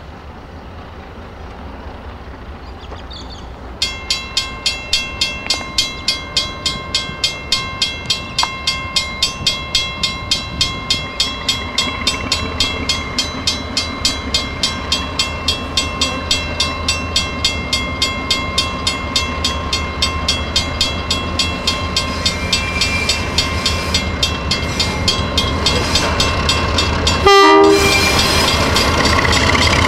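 Level-crossing bell ringing steadily about twice a second, starting about four seconds in. Under it, the low rumble of NSW 48 class diesel-electric locomotives hauling a loaded wheat train grows louder as they approach, and there is a short louder burst near the end.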